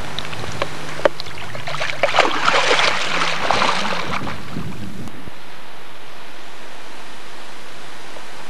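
Water splashing for about four seconds as a large common carp is released into the shallows and kicks away, after a couple of sharp knocks near the start. Then only a steady hiss.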